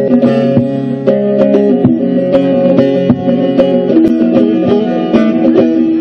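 Bağlama (Turkish long-necked saz) played solo with quick plectrum strokes: a picked folk-song (türkü) melody over steadily ringing drone strings, with no singing.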